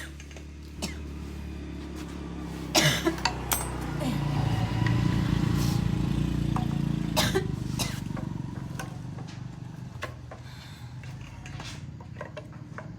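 A small engine running with a low hum, growing louder around the middle and then easing off, with a few sharp clicks about three seconds in and again just after seven seconds.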